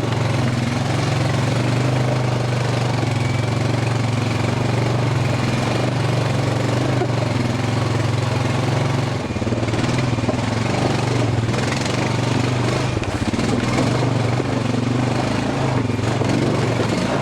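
Honda Fourtrax Rancher AT's single-cylinder four-stroke engine running steadily with the ATV under way, with a brief dip about nine seconds in.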